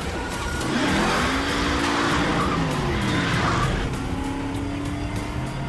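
Car engine revving up and down while the tires skid and squeal for a few seconds. The engine then settles into a steady note near the end.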